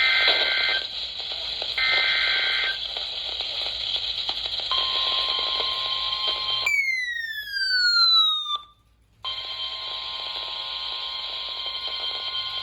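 NOAA Weather Radio emergency alert received over a hissy radio signal: the last two buzzy SAME data bursts, each about a second long and a second apart. After a pause comes the steady 1050 Hz warning alert tone. A few seconds into the tone, a loud falling whistle and a brief dropout break in before the tone resumes.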